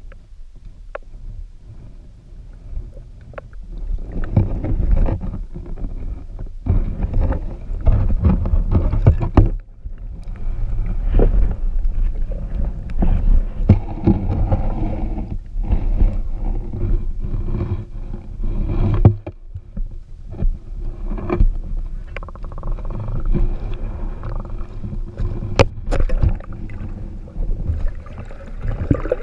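Muffled underwater sound picked up by a camera in its waterproof housing: a low rumble of water moving around it, with scattered sharp clicks and knocks.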